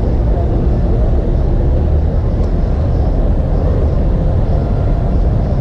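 Steady low rumble of city traffic, even throughout.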